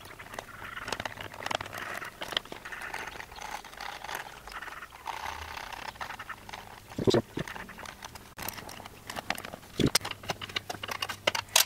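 Small steel parts being handled and fitted: a bolt, nuts and a hex key clicking and rattling against a steel clamp bar, with two louder knocks, one past the middle and one near the end.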